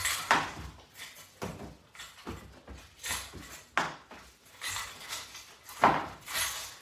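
Irregular clicks, knocks and rustles of exercise gear being handled, typical of resistance-band straps and their clips being swapped and attached.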